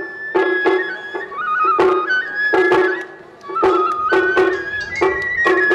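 Japanese traditional-style music: a flute melody moving in steps over steady, regular percussive beats about twice a second.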